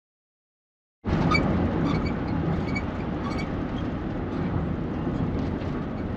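Permobil power wheelchair squeaking in short high chirps over the low rumble of a moving van, starting about a second in. The squeaks come thickest over the first couple of seconds, then thin out.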